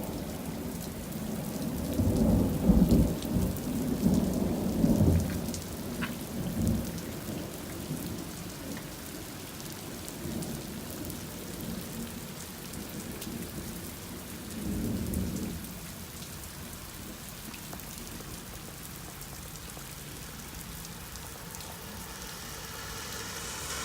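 Heavy rain pattering on and around the wet phone that is recording, an even hiss throughout. Low rumbles swell over the first few seconds and again about halfway through.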